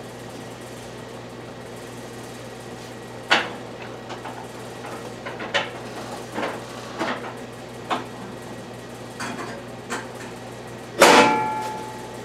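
Metal lathe being handled to change its speed setting: scattered light metal clicks and knocks over a steady low hum, then near the end a loud metallic clank that rings and fades over about a second.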